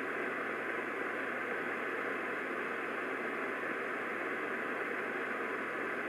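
Steady hiss and static from an AM radio with no programme audio: dead air on the broadcast. No alert tones or data bursts sound.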